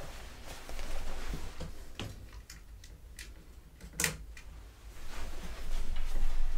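Scattered light clicks and knocks of someone moving about and handling things, with one sharp click about four seconds in and a louder rustling stretch near the end.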